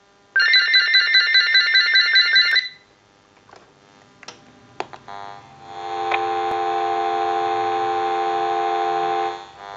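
GE 6.0 cordless telephone ringing once with an electronic warble for about two seconds, then a few clicks as the handset is picked up. Then a steady dial tone heard through an amplified handset pickup, overlaid with a buzzy hum: interference from the cordless phone's base-to-handset radio frequency, which the technician says is normal.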